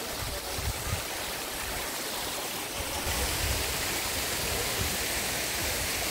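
Water cascading down a rocky, multi-tiered waterfall and stream, a steady rush.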